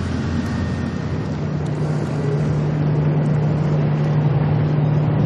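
A formation of four military helicopters (AH-64 Apache, AS565 Panther, EC725 Caracal and AS332 Super Puma) passing overhead: a steady rotor and engine drone. A low hum sets in about a second in, and the whole grows slowly louder.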